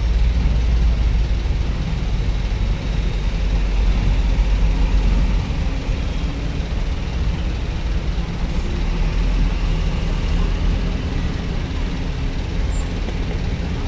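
Heavy trucks' diesel engines running as they drive slowly past, a steady low rumble.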